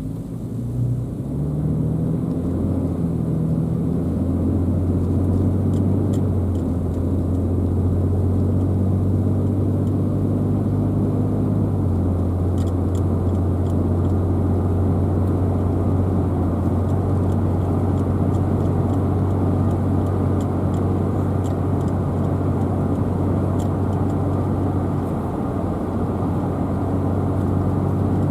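Car accelerating: the engine note rises over the first few seconds, then settles into a steady low drone of engine and road noise while cruising.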